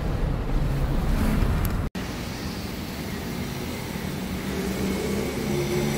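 Road and engine noise inside the cabin of a moving car, cut off suddenly about two seconds in. Then a small refrigerant vacuum pump runs steadily, evacuating the car's air-conditioning lines before the gas is charged, with a faint steady hum that grows clearer near the end.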